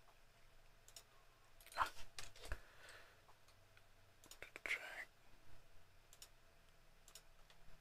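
Scattered single computer-mouse clicks. Two brief, faint voice sounds come about two seconds in and again near five seconds.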